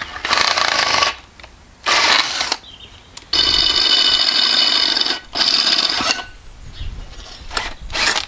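Metal being worked by hand or tool: harsh scraping or grinding of metal on metal in four bursts, the two longer ones near the middle carrying a high ringing screech.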